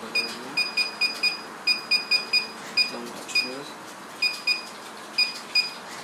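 Short electronic key-press beeps from an alarm panel's touch keypad, a dozen or more identical high beeps at an irregular pace as menu keys are pressed one after another.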